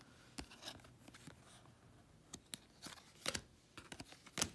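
Faint, irregular clicks and light rustling of cardstock baseball trading cards being flipped through and slid against each other by hand, with a couple of sharper clicks in the second half.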